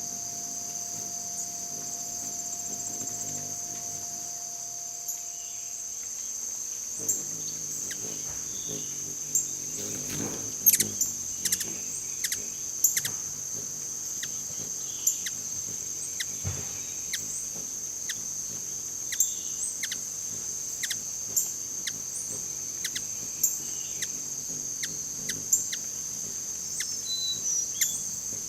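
Steady high-pitched chorus of crickets or similar insects, with short sharp chirps or ticks coming irregularly from about a quarter of the way in.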